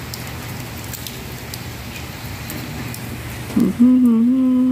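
Steady rain falling on a wet tiled courtyard: an even hiss with scattered drips. About three and a half seconds in, a woman's voice hums a held note, louder than the rain.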